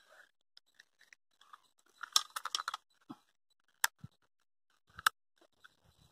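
A person biting and chewing cooked crab, teeth cracking the shell: a flurry of small crisp clicks about two seconds in, then two single sharp cracks about a second apart.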